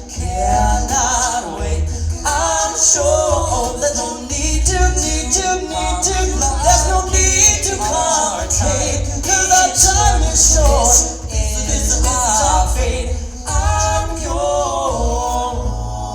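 Music: a song with a sung melody over an accompaniment with a steady, strong bass.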